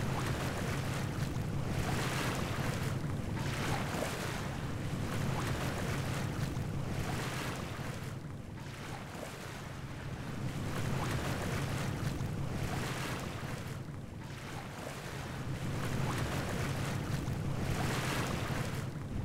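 Sailboat's engine droning steadily under sea water rushing along the hull, the wash swelling and fading every two seconds or so as the boat rides the swell, with wind on the microphone.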